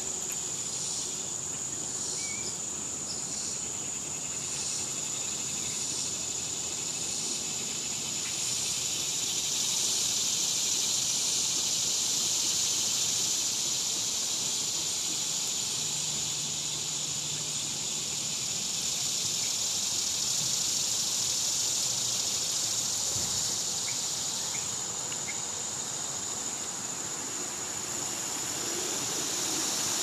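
Cicadas buzzing in a steady high-pitched chorus. The buzz pulses in the first several seconds, then swells into a louder continuous buzz for about a dozen seconds before easing off.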